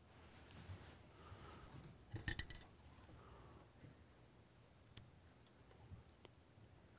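Makeup tools being handled: a quick run of small sharp clicks about two seconds in, then a few faint single ticks.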